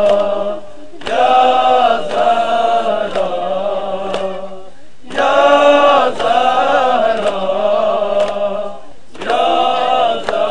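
Male voices chanting the refrain of an Urdu noha in three long, drawn-out phrases about four seconds apart, with faint regular thumps of chest-beating (matam) keeping time about once a second.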